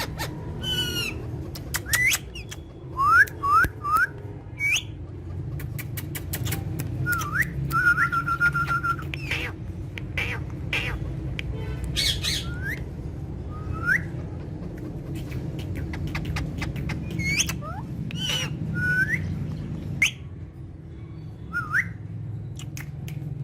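Pet parrots squawking and whistling: many short, sharply rising calls, with one held whistle about eight seconds in, over a steady low hum.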